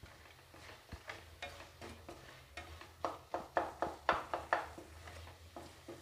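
Wooden spatula stirring a thick diced-potato and vegetable mixture in a steel kadai, with irregular scrapes and knocks against the pan, busiest through the middle.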